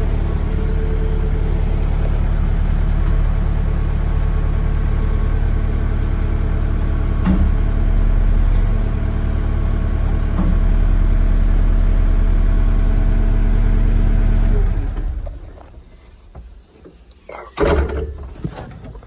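Skid steer's engine running steadily at a loud level, a little louder in its last few seconds, then dying away about fifteen seconds in. A short loud knock follows near the end.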